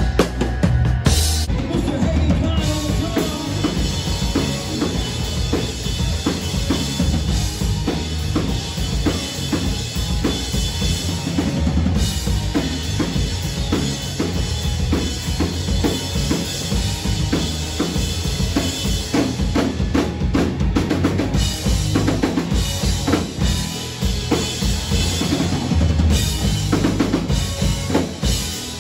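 A live band playing, with the drum kit most prominent: kick and snare keeping a steady beat under electric guitars.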